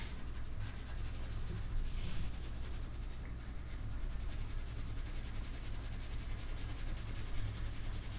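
Pencil shading on paper: soft scratching strokes as a shadow is hatched in, over a low steady hum.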